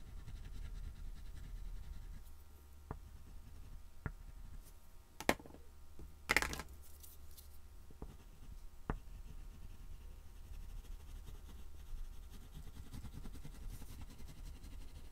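Soft rubbing of oil pastel and a paper blending stump on a painted board, over a low steady hum. A few light clicks and two louder clatters come about five and six seconds in as the drawing tools are put down and picked up.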